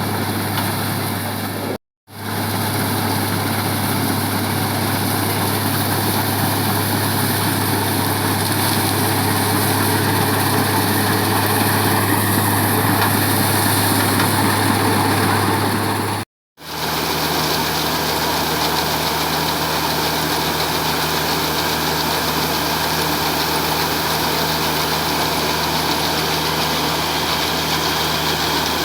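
Combine harvester's engine and machinery running steadily with a low hum. It drops out twice for a moment, and after the second break it comes back at a different, slightly higher pitch.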